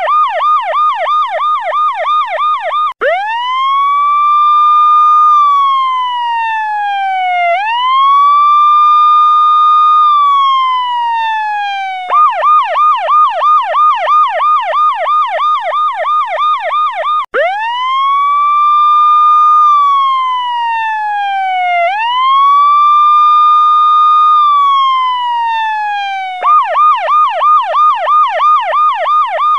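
Electronic police-style siren alternating between a fast yelp of about four warbles a second and a slower wail. In the wail, each sweep rises quickly, holds and then falls over roughly four seconds. The pattern runs yelp, two wail sweeps, yelp, two wail sweeps, then back to the yelp near the end.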